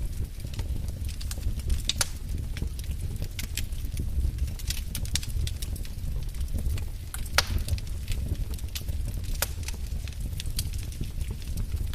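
Wood fire crackling in a fireplace: irregular sharp pops and snaps over a steady low rumble, with one louder snap about seven seconds in.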